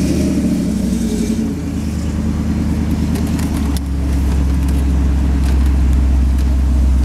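Chevrolet Vortec 350 small-block V8 of a 1978 Chevy pickup running at low speed, heard from inside the cab as a steady low drone. The engine note grows louder about four seconds in.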